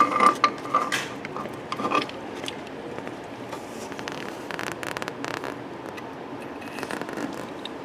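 Light clicks and scrapes of metal parts being handled as an aftermarket harmonic balancer is pushed onto an LS engine's crank snout by hand. The clicks come close together in the first two seconds, followed by softer scratching.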